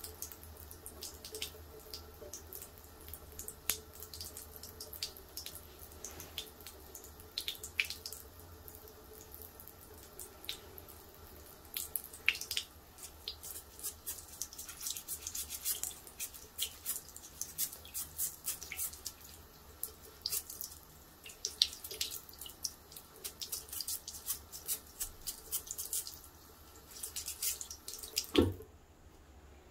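Water from a tap running into a ceramic bathroom basin, with many irregular splashes and drips as a small rubber stamp is rinsed and scrubbed under the stream. A loud knock comes near the end, and then the water sound stops abruptly.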